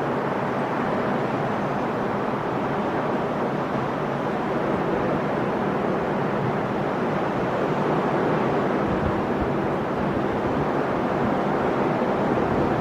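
Sea waves rolling in and breaking on the shore: a steady, continuous rush of surf that swells slightly near the end.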